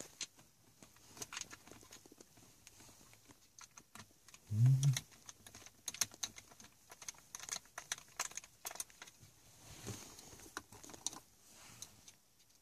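Screwdriver turning small screws into a plastic console frame: scattered light clicks, ticks and metal rattles. A brief low hum sounds about four and a half seconds in.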